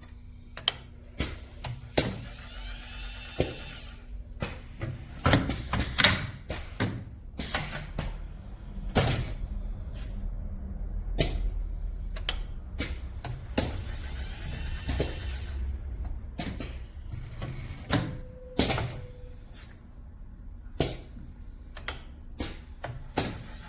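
Automatic wire solder-dipping machine running through its cycle: a string of sharp mechanical clacks and knocks, irregularly spaced about half a second to a second apart, over a low steady hum.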